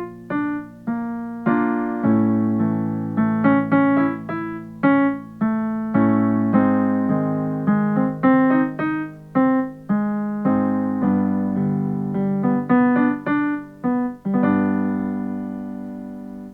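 Piano playing a vocal-warm-up accompaniment: quick runs of single notes over held chords, the pattern moving to a new chord about every two seconds. It ends on a long held chord that fades and stops right at the end.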